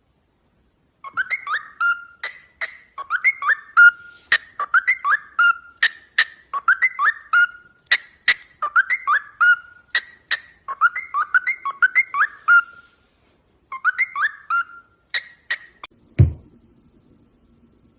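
Pet bird whistling a short phrase over and over, about once a second, each phrase a quick up-and-down pitch sweep, with sharp clicks among them. It stops briefly near the middle, then ends with a low thump and a faint hum.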